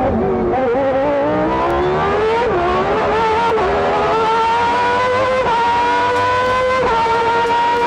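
Honda RA168E 1.5-litre turbo V6 in a McLaren MP4/4, heard onboard under hard acceleration. The engine note climbs steadily in pitch and drops sharply at each upshift, four times.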